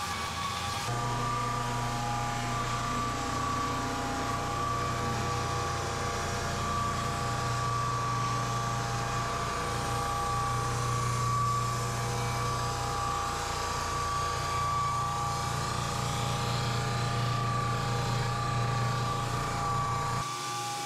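Electric drum floor sander running steadily while sanding a hardwood floor, heard right up against the machine: a constant motor hum with a steady high whine over it.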